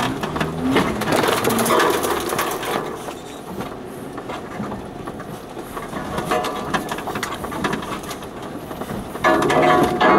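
4x4 crawling down a rutted, overgrown lane, heard from inside the cab: a steady clatter of knocks and rattles from the body and suspension over the ruts, with undergrowth brushing and snapping against the vehicle. Louder at first, quieter in the middle, and louder again suddenly about nine seconds in.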